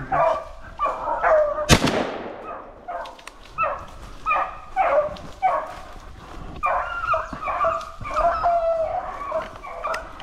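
A pack of beagles baying in chase on a rabbit's trail, many voices overlapping in long, drawn-out calls. A single loud gunshot cracks and echoes away about two seconds in.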